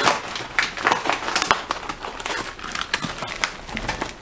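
A foil-lined dehydrated meal pouch being torn open and handled, with irregular crinkling and crackling.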